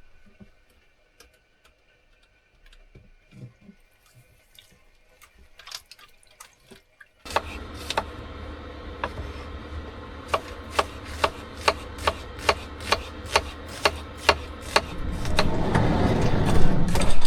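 Water running from a tap, starting suddenly about seven seconds in, with a steady low hum and sharp clicks about twice a second; before that only faint scattered clicks.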